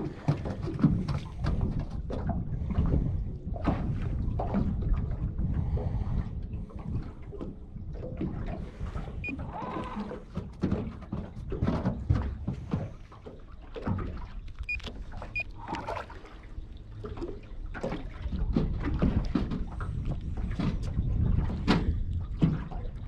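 Small waves lapping and slapping against the hull of a small fishing boat, with uneven wind rumble on the microphone and an occasional knock against the boat.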